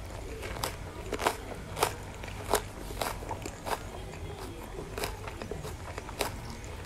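Crisp bites and crunching of a raw large green chili being eaten in small bites. There are about eight sharp crunches, spaced unevenly half a second to a second and a half apart, with chewing between them.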